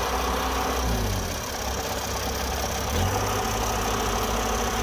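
Diesel engines of a Kubota DC60 rice combine harvester stuck in soft earth and the tractor hitched to it, running steadily. The engine note changes about a second in and again about three seconds in.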